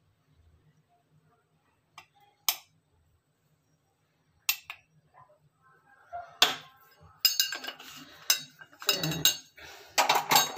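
Metal spoon clinking and tapping against a metal cooking pot as ground spice is shaken in. A few single clicks come first, then from about two-thirds of the way in a quick run of clinks and knocks.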